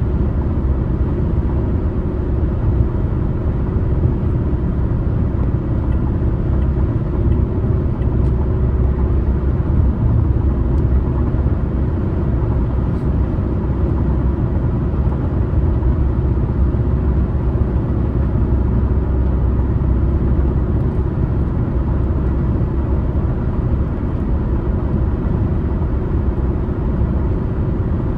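A car driving along a highway: steady road and engine noise, a low rumble that holds even with no changes.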